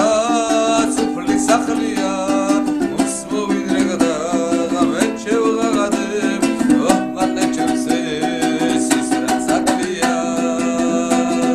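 Georgian panduri strummed in a quick, steady rhythm, its low strings ringing on as a held drone under the tune.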